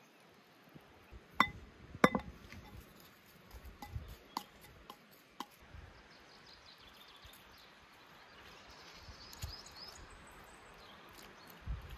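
Cookware clinking: two sharp clinks with a short ring, about one and a half and two seconds in, then a few lighter taps.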